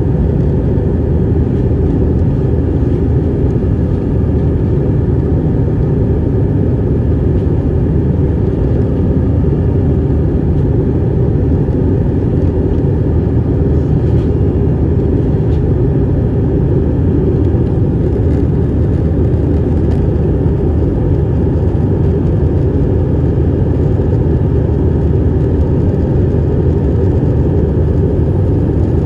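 Cabin noise of an Airbus A319 climbing after takeoff: the jet engines and the air rushing past the fuselage make a loud, steady, low rumble that does not change.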